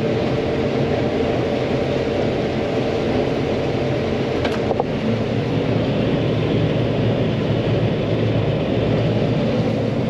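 John Deere 9500 combine harvesting corn, heard from inside the cab: the engine and threshing machinery run in a steady, dense drone. A short click comes about four and a half seconds in.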